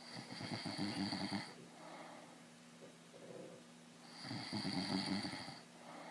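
A man snoring in his sleep: two loud snores about four seconds apart, each about a second and a half long, with softer breathing between them.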